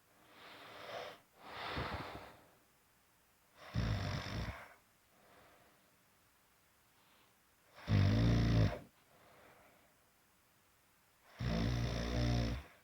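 A sleeper snoring: two softer breaths near the start, then three loud snores about four seconds apart.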